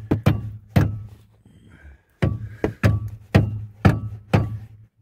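Rubber mallet blows on the front strut-to-knuckle bolts, driving them out. There are three quick blows, a pause of over a second, then a steady run of about six blows, one every half second, each with a short ring.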